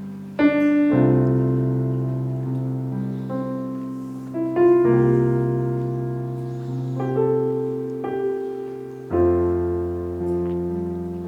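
Solo piano playing slow, sustained chords, each struck and left to ring and fade, with new chords about every two to four seconds.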